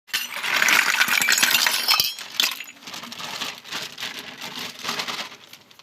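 Small hard miniature kitchen toy pieces clinking and rattling against each other, a dense jumble of clicks for about the first two seconds, then thinning to scattered clicks that die away.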